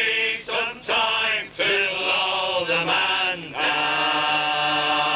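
A group of men singing a sea shanty's closing chorus unaccompanied, in harmony, ending on one long note held together through the second half.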